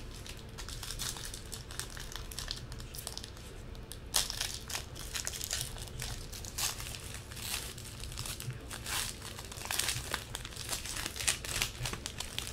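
Wrapper of a football trading-card pack crinkling and tearing as it is opened by hand, the crackling growing denser and louder about four seconds in.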